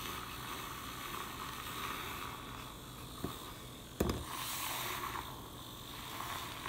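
Handheld battery-powered milk frother whirring steadily as its wire whisk spins in coffee with butter and cream in a stainless steel tumbler. A single sharp click comes about four seconds in.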